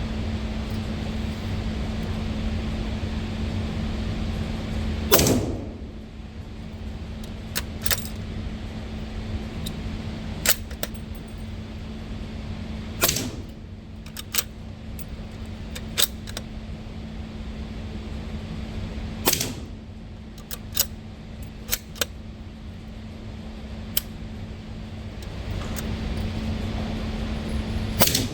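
Suppressed gunshots firing subsonic ammunition: four shots several seconds apart, with smaller metallic clicks between them.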